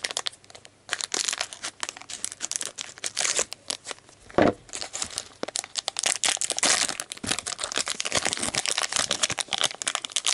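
Clear plastic bag crinkling and crackling in irregular bursts as it is opened and handled around a lump of soft foam slime, with one louder thump about four and a half seconds in.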